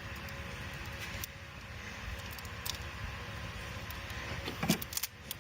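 Electrical tape being peeled off the injector harness wires: a few faint short clicks and crackles over a steady background hiss.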